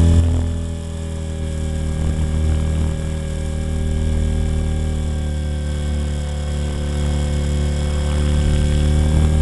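Blade 400 electric RC helicopter heard up close from its tail fin: a steady hum and whine from the motor, drive gears and spinning rotors, its pitch sagging slightly about a second in and rising again near the end.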